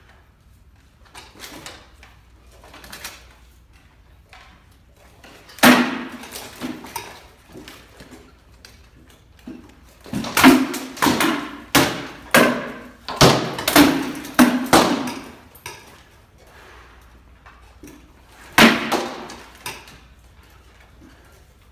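Sword blows striking shields in armoured sparring, each a sharp knock with a short hollow ring. A single hard hit comes early, then a quick flurry of blows for several seconds, then one more hard hit near the end, with lighter knocks between.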